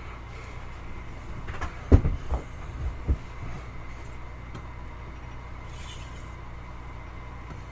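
A handful of knocks and thumps about two to three seconds in, the loudest near two seconds, as hard objects such as the whetstone and its box are handled and set down on the work surface, over a steady low electrical hum.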